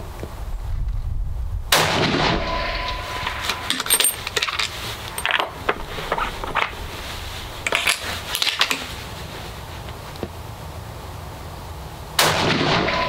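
Two rifle shots from a .300 WSM Improved F-Open bolt-action rifle, one about two seconds in and one near the end, each with a sudden crack, a short echo and a brief steady ringing tone after it. Between the shots come clusters of metallic clicks as the bolt is worked and a fresh cartridge is taken from the ammo box and chambered.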